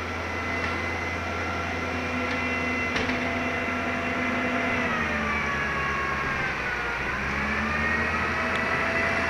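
A sanitation truck's engine and machinery running steadily, with a steady whine over a low hum. Its pitch sags about halfway through and picks back up, as the engine slows and speeds again under load.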